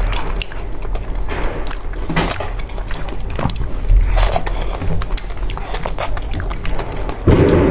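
Close-up eating sounds of soft, sticky rice balls being bitten and chewed: wet smacks and small mouth clicks at irregular intervals. A louder, deeper sound comes in near the end.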